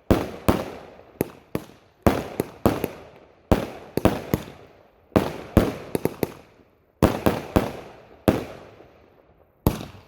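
Fireworks going off in quick succession: about twenty sharp bangs, mostly in groups of two to four about every second and a half, each dying away with a trailing echo.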